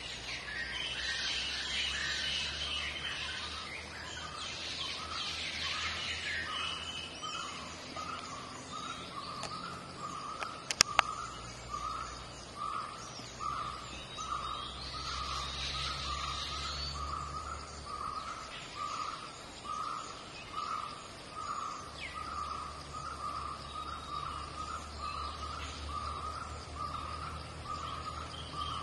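Birds calling: one bird repeats a single mid-pitched note a little more than once a second, starting about a second in, over higher twittering that comes and goes. Two or three sharp clicks about eleven seconds in, with a low hum underneath.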